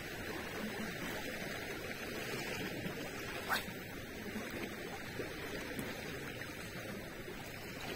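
Steady soft wash of a calm sea with a light breeze. A single sharp click sounds about three and a half seconds in.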